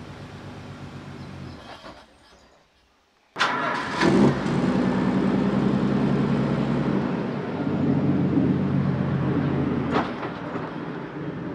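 Sports car engine idling, then falling away to near silence about two seconds in. It starts again about three and a half seconds in with a brief rev and settles into a steady idle. A sharp click comes near the end.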